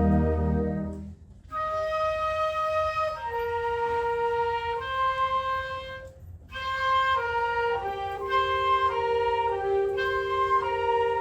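Concert band playing a slow, warm piece. A loud full chord with deep bass is released about a second in. After a short pause, softer sustained woodwind-like lines enter and move in overlapping held notes, with another brief pause a little past halfway.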